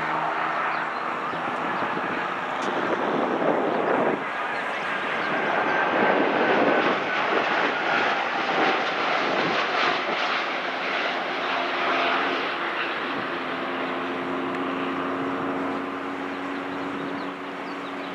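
Airbus A330-200 airliner landing: the jet noise of its Rolls-Royce Trent 700 turbofans rises to its loudest about halfway through and then eases, with a steady engine whine running through the rush.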